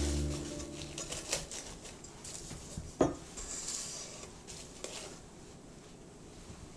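Scattered light clinks and taps of kitchen utensils against dishes, a few separate knocks with the loudest about three seconds in.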